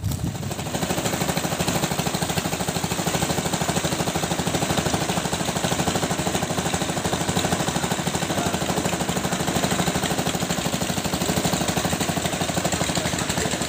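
Small wooden motorboat's engine running steadily underway, with a fast, even pulse and a hiss of water and wind over it.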